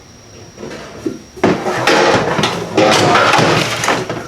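Steel ammo can lid being handled, clanking and scraping with a run of sharp metal knocks that starts about a second and a half in.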